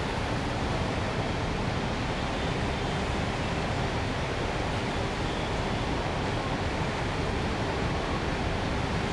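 Steady urban ambience: an even, unbroken wash of city traffic and street noise, with no single sound standing out.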